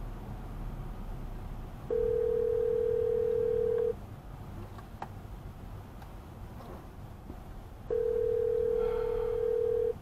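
Telephone ringback tone of an outgoing call: two steady two-second rings about six seconds apart, over low road noise in the car.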